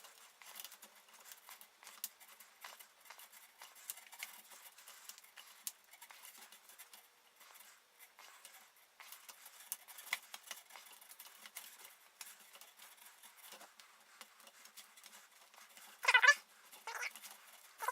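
Foam handlebar grip scraping and rustling as it is twisted and pulled off a metal scooter handlebar, with a couple of short, louder squeaks near the end as the foam rubs on the bar.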